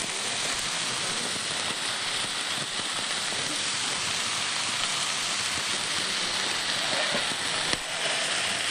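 Chopped onion, garlic, coloured peppers and parsley sizzling steadily in hot oil in a frying pan, with one light tap near the end.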